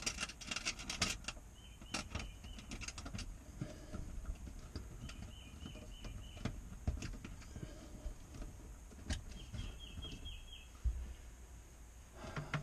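Hands working electrical wiring at a small metal junction box: scattered light clicks, taps and rustles as wires are pushed through and a wire nut is fitted. Short runs of rapid, faint high chirping come and go in the background.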